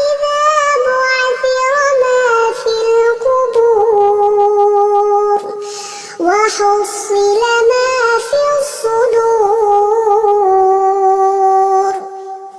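Melodic Quran recitation (tajweed) in a high voice: long held notes with wavering melismatic ornaments, and a short break for breath about halfway through.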